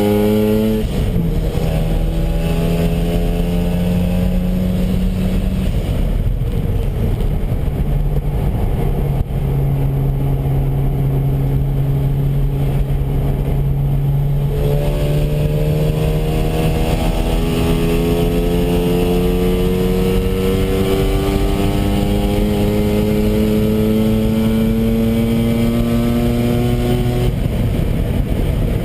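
Mazda RX-7 FD3S's twin-rotor rotary engine running hard on track: the pitch climbs and drops about a second in, holds lower and fairly steady for a long stretch, then climbs slowly for about twelve seconds before dropping near the end.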